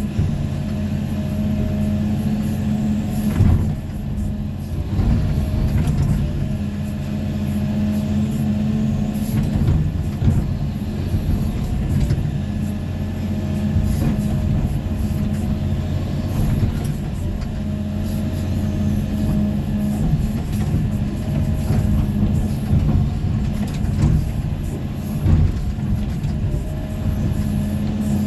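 Excavator's diesel engine running steadily under work, with a few sharp knocks and clanks from the machine at work.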